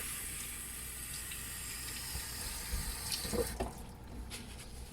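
Tap water running steadily into a sink, shut off about three and a half seconds in, with a few small knocks and splashes around the shut-off.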